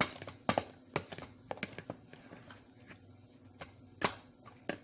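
Irregular light clicks and knocks of kitchen utensils against dishes, sharpest at the very start, about half a second in, and twice near the end.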